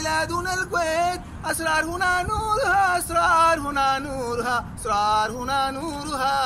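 A man singing solo in Arabic, holding long notes that bend up and down between short breaks for breath.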